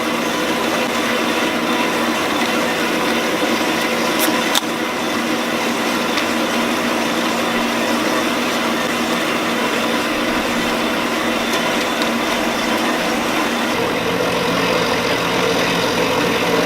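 Metal-cutting bandsaw running steadily through a 6-inch solid steel bar, with a tractor engine idling alongside. There are a couple of light clicks about four seconds in, and the engine hum grows deeper and stronger near the end.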